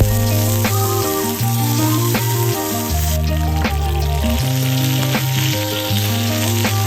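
Background music with a steady beat and held bass notes, over a steady sizzling hiss.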